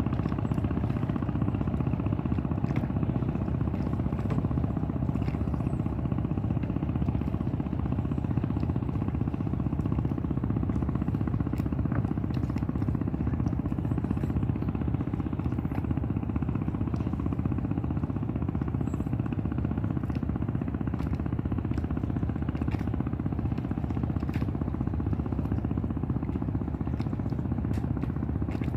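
Boat engine running steadily, a low, fast, even chugging drone.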